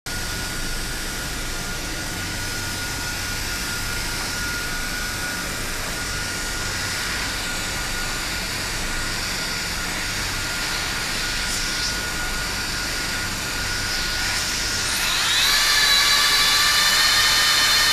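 Handheld hot-air tarpaulin welder running, its blower giving a steady rushing hiss with a faint thin whine. About fifteen seconds in, the motor speeds up with a rising whine, then settles into a louder, higher whine.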